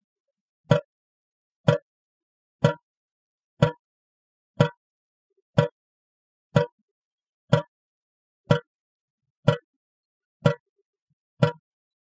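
Leaky faucet dripping at a steady pace: twelve short, sharp drops, evenly spaced about a second apart.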